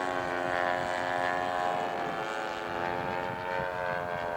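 Radio-controlled scale model airplane's engine running steadily in flight, its pitch rising and falling slightly as it passes.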